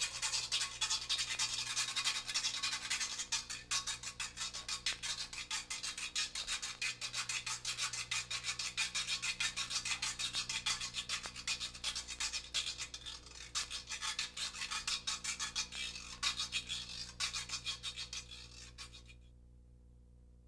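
Fast rasping samba hand-percussion rhythm with no drums, fading out about nineteen seconds in and leaving a faint low hum.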